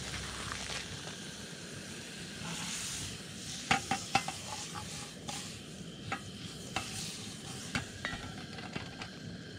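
Butter sizzling and spitting in a small aluminum pan on a propane camp stove, over a steady hiss, with a series of light metal clinks as the pan is shifted on the burner grate by its handle.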